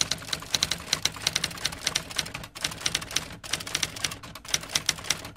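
Typewriter sound effect: rapid key clacks, several a second, with a few brief pauses.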